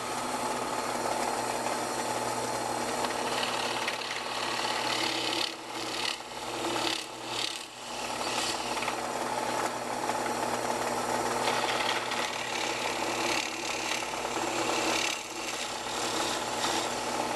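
Drill press running, its bit boring holes through a wooden board with a steady grinding, chip-cutting sound over the motor's hum. The sound dips briefly a few times about a third of the way in and again near the end.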